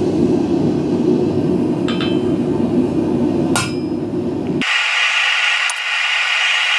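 Hammer striking a steel letter stamp held on forged steel on an anvil, stamping a letter: a light tap about two seconds in and a harder blow about a second and a half later. A loud steady noise runs underneath and turns abruptly thinner and hissier about two-thirds of the way through.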